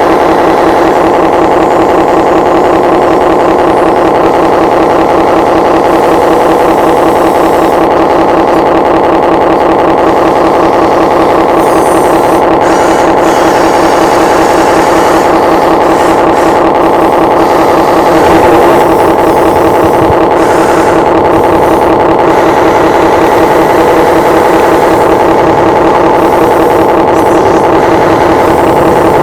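An RC excavator's small hydraulic pump and motor running steadily with a constant whine, dipping briefly in pitch about two-thirds of the way through as it takes load.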